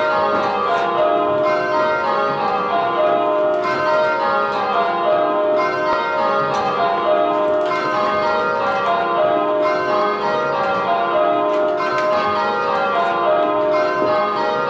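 Tower bells being rung in full circle for change ringing, struck one after another in steady rows. Each row steps down in pitch from the treble to the tenor and repeats every couple of seconds, as pairs of bells swap and hold places.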